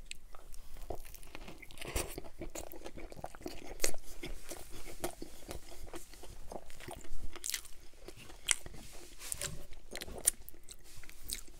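Close-miked chewing of a McDonald's Big Mac: a bite into the bun, then steady wet chewing with small crackles. Louder moments come about four, seven and ten seconds in.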